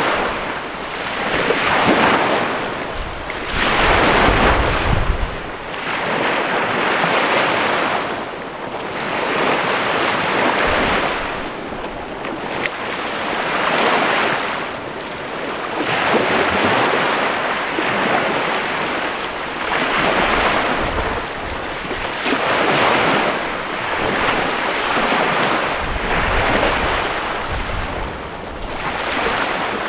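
Small Chesapeake Bay waves breaking and washing up a sandy beach, one after another about every two to three seconds. Wind rumbles on the microphone now and then.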